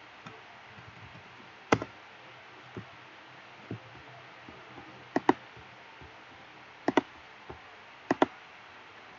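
Computer mouse clicking through a web page's drop-down menu: one sharp click, then three quick pairs of clicks, with a few fainter ticks between.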